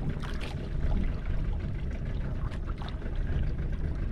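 Water sloshing and splashing against a small fishing boat's hull, over a steady low rumble of wind and motor.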